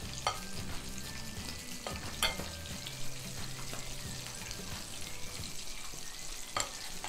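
Flour-coated chicken deep-frying in hot oil in a pan, a steady sizzle, with metal tongs clicking against the flour bowl three times as the next piece is dredged.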